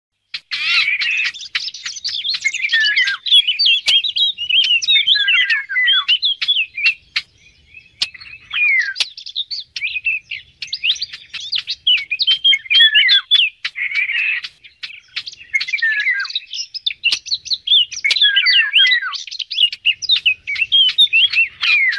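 Songbird song: long runs of fast, varied warbling notes with short pauses between phrases, and sharp clicks scattered through.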